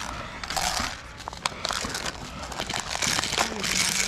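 Rustling and crunching close to the microphone, coming in bursts, with a few sharp clicks among them.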